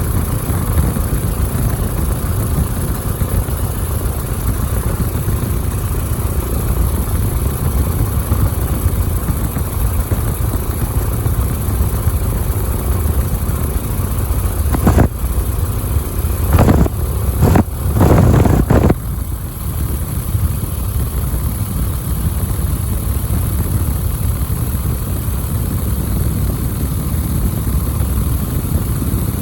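Biplane's engine running steadily, heard from on board, with a few brief louder noisy surges about halfway through.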